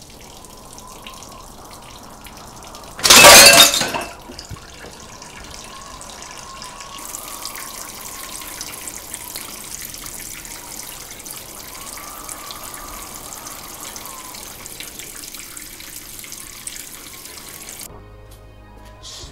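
Kitchen tap running into a sink, a steady hiss of water, with a loud burst of noise lasting about a second near the start. Soft background music plays underneath, and the water sound cuts off abruptly near the end.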